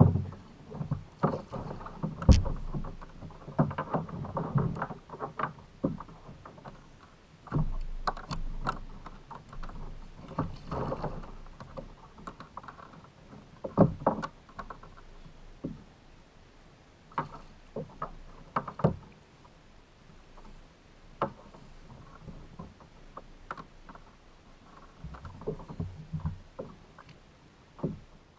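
Irregular knocks, clunks and brief splashy noises on a fishing kayak on the water, as gear and hull are handled and bumped.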